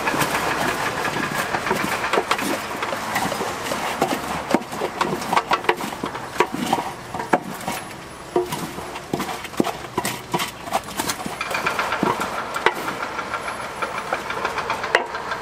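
Wooden paddles stirring and tossing puffed rice in a large aluminium pot, with irregular knocks and scrapes of the paddles against the pot. A steady mechanical hum runs underneath.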